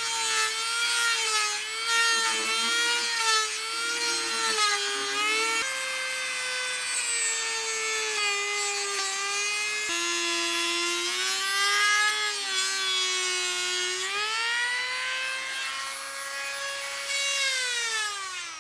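High-speed rotary tool spinning a small diamond cutting wheel, grinding into the furnace's refractory around the heating-coil plates. The motor whine sags and recovers in pitch as the wheel is pressed into the material, rises once more late on, then winds down near the end.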